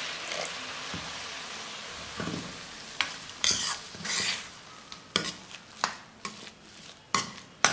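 Hot water poured into rava upma in a stainless steel kadai, hissing for about two seconds, then a steel ladle stirring and scraping the thick semolina mixture, with several sharp clinks of the ladle against the pan.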